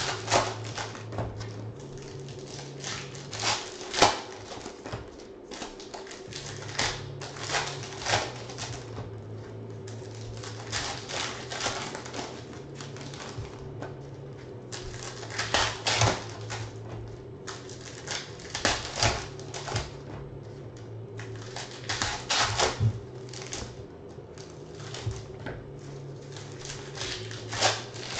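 Foil trading-card packs torn open and crinkled by hand, with the cards flicked and shuffled, in irregular bursts of crackling. The loudest is a sharp snap about four seconds in.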